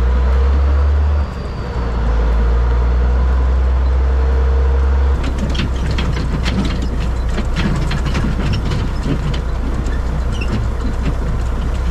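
Truck engine running with a steady low drone while a converter dolly is towed behind it. After about five seconds the sound changes to a rougher rumble with rapid rattling and clanking from the dolly and hitch bouncing over rough ground.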